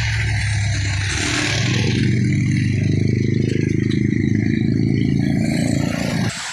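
A motor vehicle's engine running close by, a low pulsing drone over traffic noise, which cuts off suddenly near the end.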